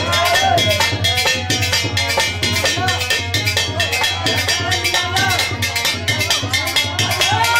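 Hindi devotional bhajan music: a fast, steady beat of drum and shaken and struck hand percussion, with a voice singing a melody that rises and falls over it.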